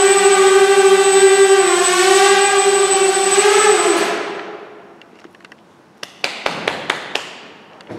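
Small quadcopter's electric motors and propellers buzzing at a steady pitch with a thin high whine, the pitch wavering as it settles, then spinning down and falling silent about four seconds in as it lands. A few sharp clicks follow near the end.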